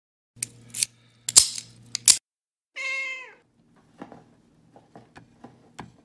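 Several sharp clicks over a low steady hum, then a single cat meow that falls in pitch, followed by faint scattered ticks.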